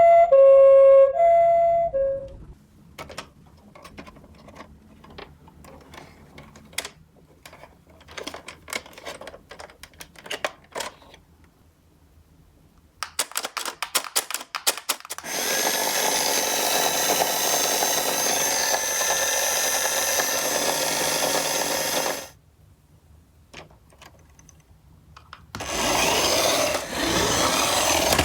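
A two-tone pi-po ambulance siren plays for about two seconds. Scattered clicks and clacks from die-cast toy ambulances follow. Then comes a steady rattle lasting about six seconds as the minicars roll down the slope, and a second shorter rattle near the end.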